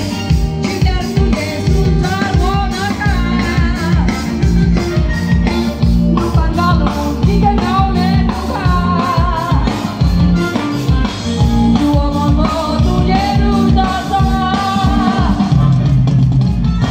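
Live band music amplified through a concert PA: a singer's voice over keyboard, guitar, congas and a steady dance beat.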